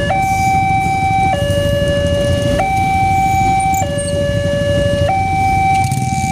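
Alkmaar-model railway level-crossing siren sounding its two-tone alarm, stepping between a higher and a lower tone about every one and a quarter seconds, over a steady low rumble.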